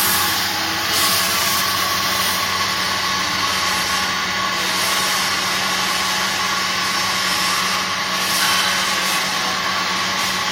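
Steady machine hum with an even hiss, holding level throughout.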